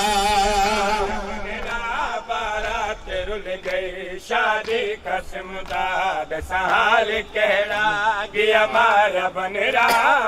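Male voices chanting a noha melody in long, wavering held notes without clear words, with scattered sharp slaps of chest-beating (matam) mixed in.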